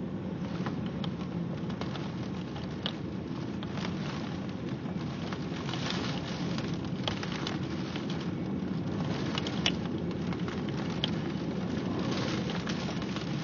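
Rain falling steadily during a thunderstorm, with many sharp, irregular taps of individual drops striking a surface.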